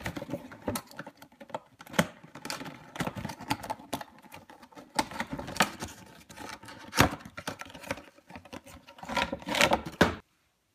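Cardboard action-figure box being opened and the figure pulled out of its packaging: irregular scrapes, crinkles and clicks. The sound cuts off abruptly near the end.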